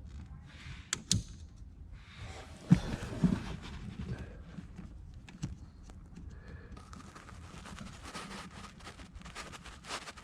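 Hands working a squeeze-clip electrical connector in an engine bay: several sharp plastic clicks and knocks, the loudest a pair about three seconds in, amid low rustling.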